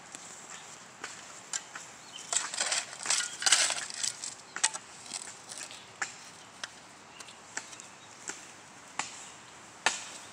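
Steel shovel working loose soil. There is a run of scraping and crunching about two to four seconds in, then a series of separate sharp strikes of the blade spaced about a second apart.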